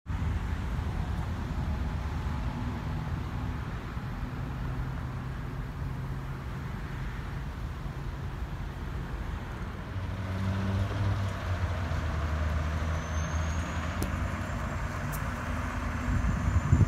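Fire apparatus engines idling with a steady low rumble, growing fuller from about ten seconds in, with a faint high whine rising near the end.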